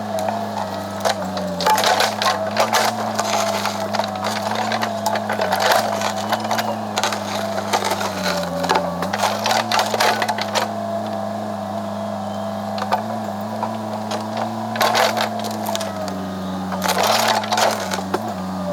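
A machine's engine running steadily, its pitch dipping briefly twice as if under load, over many sharp cracks and snaps of wood breaking, typical of roots giving way as a stump is dug out.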